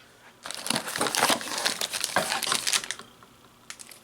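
Plastic packaging crinkling and rustling as it is handled and opened, for about two and a half seconds, followed by a few light ticks near the end.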